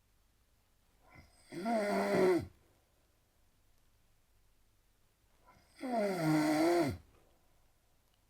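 A man snoring heavily: two snores about four seconds apart, each lasting about a second.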